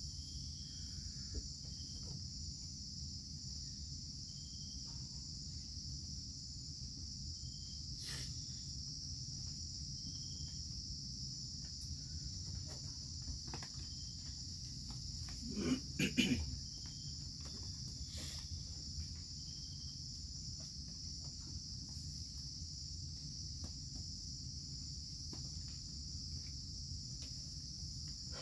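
A steady, high-pitched chorus of rainforest insects with a low rumble beneath it. A little past halfway there is a brief cluster of knocks and rustling.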